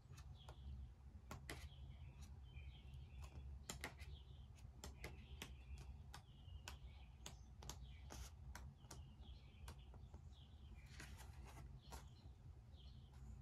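Faint desk sounds of handwriting and journaling: irregular small clicks and taps with short scratchy pen strokes on paper, over a low steady room hum.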